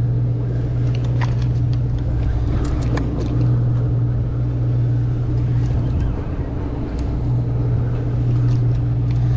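Sportfishing boat's engine running with a steady low hum, with a few light clicks and taps scattered over it.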